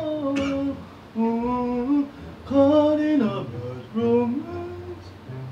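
A man singing four short phrases of level, held notes, with brief pauses between them.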